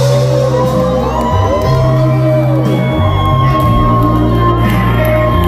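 Live pop-rock band music at a concert, played loud, with the audience whooping and shouting over it; a long note is held from about halfway through.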